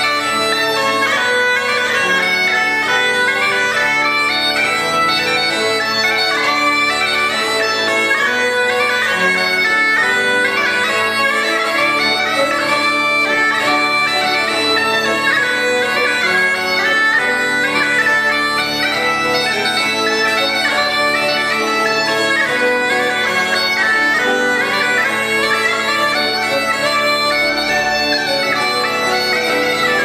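A lively traditional Northumbrian tune on Border pipes, the chanter playing the melody over a steady drone, with piano accordion, guitar and bass guitar accompanying.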